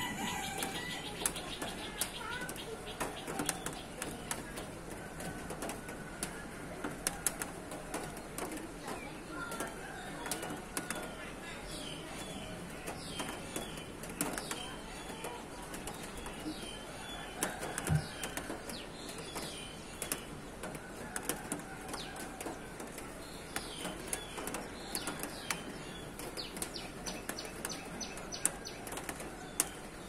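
Several birds calling over one another in short chirps and whistles, with scattered sharp clicks and a fast run of repeated high notes near the end.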